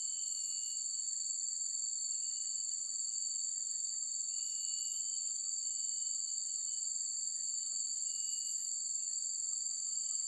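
Insects trilling steadily in two high, unbroken tones, with a few short, faint higher notes now and then.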